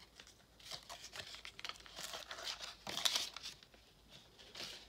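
Crinkling and tearing of a baseball card pack wrapper being opened, in several short faint bursts, the loudest about three seconds in.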